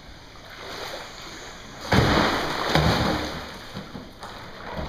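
Floodwater splashing and sloshing: a sudden burst of splashing about two seconds in that dies away over the next two seconds.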